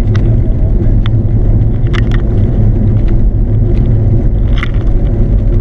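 Steady low rumble of a car driving on the open road, heard from inside the cabin, with a few faint clicks.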